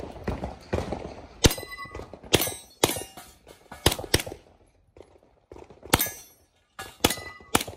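Handgun shots fired during a practical shooting stage: about nine sharp shots at uneven intervals, several in quick pairs. Struck steel targets ring briefly after some of the hits.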